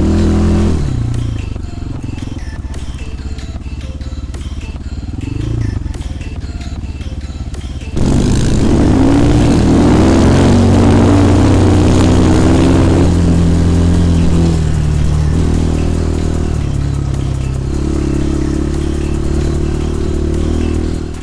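250 cc dirt-bike engine running: its note drops to a low run just under a second in, then about eight seconds in it turns abruptly louder and climbs in pitch under throttle for several seconds before settling into a steady run.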